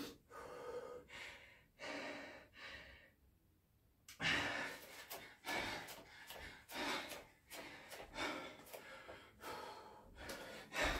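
A man breathing hard in quick, noisy gasps from the exertion of a set of Navy SEAL burpees. The breathing stops for about a second around three seconds in.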